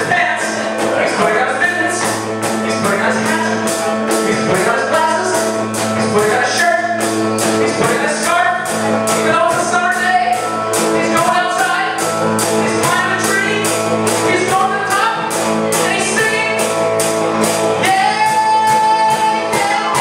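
A live children's band playing a song: guitar and keyboard over a steady, even beat, with singing.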